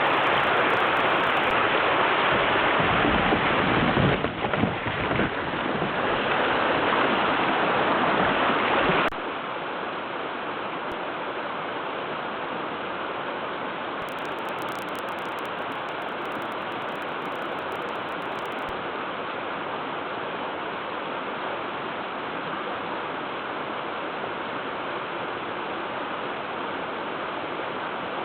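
Creek water running steadily. The rush drops suddenly to a softer level about nine seconds in, with some low rumbling a few seconds before that.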